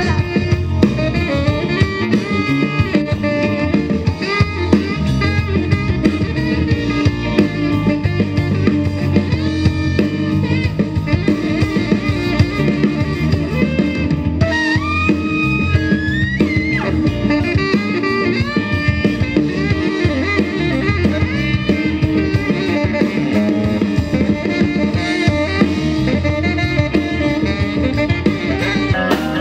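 Live soul band playing an instrumental passage with a steady beat on drum kit, plus bass and guitar. Some guitar lines bend in pitch about halfway through.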